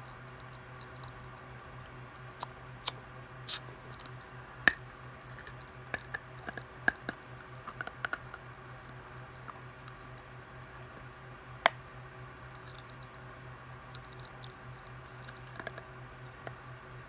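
Irregular sharp clicks and taps, sometimes a few in quick succession, over a steady low hum. The loudest clicks come about five seconds and twelve seconds in.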